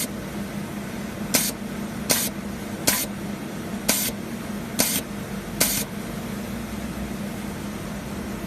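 Fiber laser welder firing a series of short pulses on stainless steel: about seven sharp pops in the first six seconds, unevenly spaced, over the machine's steady hum.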